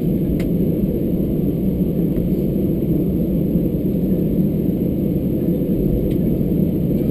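Steady low rumble inside the cabin of an Airbus A320-214 parked at the gate, the hum of the cabin air-conditioning, with a couple of faint clicks.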